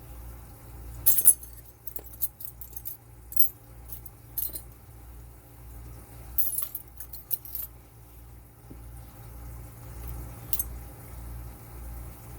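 Light metallic clicks and clinks of small padlock parts being handled as an Abus 8145 pin-tumbler padlock is taken apart, in scattered clusters, over a steady low hum.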